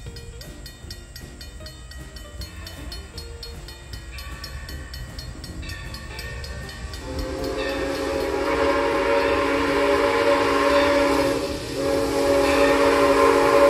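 A steam locomotive's whistle blows a long chime blast starting about halfway in, with hiss beneath it. The blast breaks briefly near the end, then a second long blast follows. Before the whistle, a grade-crossing bell rings steadily.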